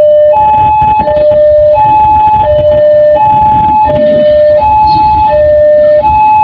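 Two-tone hi-lo siren, switching back and forth between a higher and a lower pitch about every 0.7 seconds, over a low rumble.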